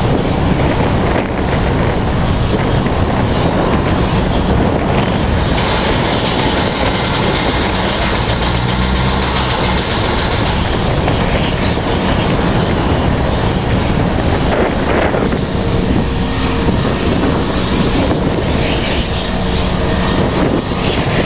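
Wind buffeting the microphone: a loud, steady rumbling rush with no break.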